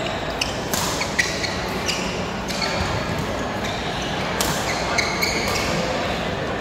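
Badminton rackets smacking a shuttlecock in irregular sharp hits during rallies, with a few short squeaks, over a steady echoing din of a busy badminton hall.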